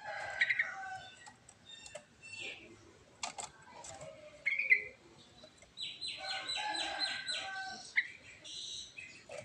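Yellow-vented bulbul singing a varied song of scattered chirps and short phrases, with a fast run of repeated notes about six seconds in.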